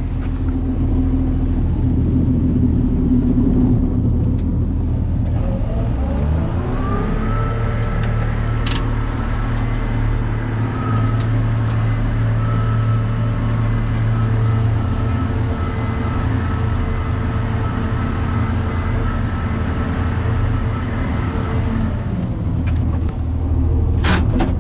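A John Deere 7600 tractor's diesel engine running, heard from inside the cab, with a PTO-driven batwing rotary mower attached. About six seconds in, a rising whine comes in as the mower's drive spins up to speed. The whine holds steady over the engine and drops away a couple of seconds before the end.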